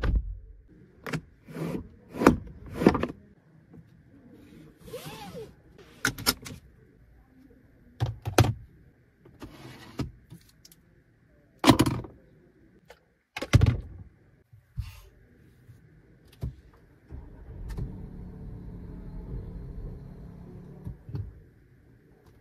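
A string of sharp clicks and knocks from hands working a Geely Xingrui's cabin controls and trim: door-panel switches and the centre-console storage. A steady low hum runs for a few seconds near the end.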